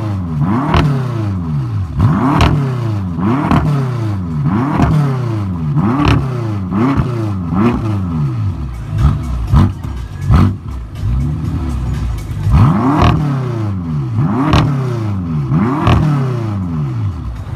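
BMW M5 engine being revved in repeated quick throttle blips, about a dozen in all: each time the pitch shoots up and falls back, with a sharp crack at the top of several revs.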